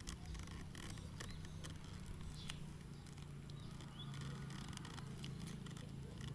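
Scattered light clicks and crinkles of a shrink-wrapped pack of small plastic drink bottles being handled, over a faint steady low hum.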